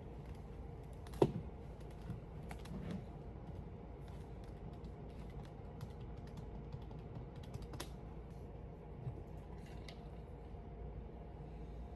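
Scattered light clicks and taps over a steady low hum, with one sharper knock about a second in and another near eight seconds.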